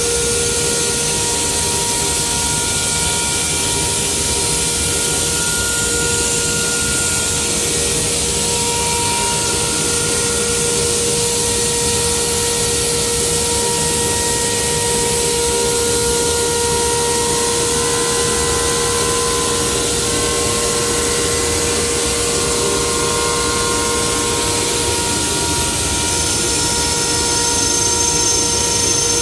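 Power cutting tool running steadily while cutting out a moulded helmet shell: a loud rushing hiss with a steady whine on top, its pitch shifting slightly around the middle.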